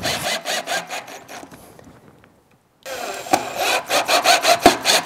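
Cordless drill/driver driving wood screws through the steel bench frame into cedar boards: a fast, pulsing whir. It dies away about two seconds in and starts again on the next screw just before three seconds.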